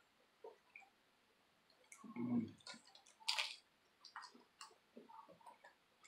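A person eating, close to the microphone: faint chewing with wet mouth clicks and smacks. There are scattered soft clicks from a plastic fork scooping food off a plate, and a sharper click about three seconds in.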